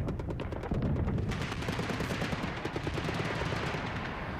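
An Apache Longbow's 30 mm chain gun firing a sustained rapid burst, the shots running together into a continuous rattle, with a harsh hiss joining in about a second in.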